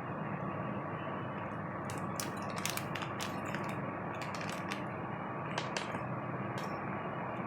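A cluster of sharp clicks and knocks from a power drill being handled, between about two and six and a half seconds in, over a steady low hum with a faint thin whine.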